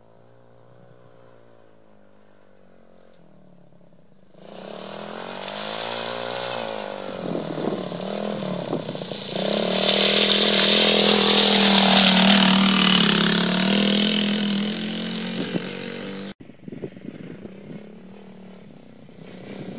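Small child-size quad bike engine revving up and down, faint at first and getting much louder from about four seconds in as the quad comes up the muddy track, loudest in the middle. Near the end the sound cuts off abruptly to a quieter, more distant engine.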